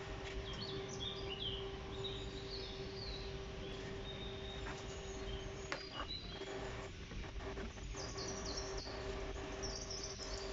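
Hot frying oil bubbling lightly in a pan under a steady low hum, with birds chirping on and off in the background.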